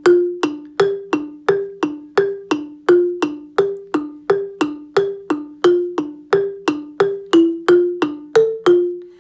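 Wooden-barred xylophone struck with mallets in a steady repeating pattern, about three notes a second, mostly alternating between two notes. Near the end a higher note comes in and a last note is left to ring out.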